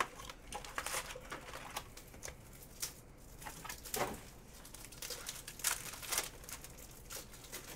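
Foil trading-card pack wrappers crinkling and rustling in hand, with irregular crackles as a pack is torn and peeled open.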